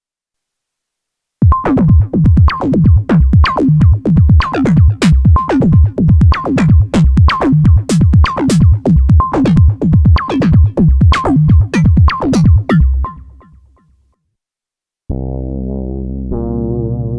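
ASM Hydrasynth digital wave-morphing synthesizer playing a factory preset: a steady, drum-machine-like rhythm of punchy notes, each sweeping down in pitch, that fades out. After a short silence, a sustained chord from another preset starts near the end.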